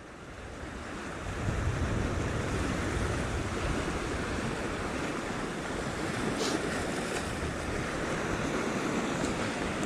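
Sea waves washing against a rocky shore, a steady rushing swell that builds over the first second and a half, with wind buffeting the microphone.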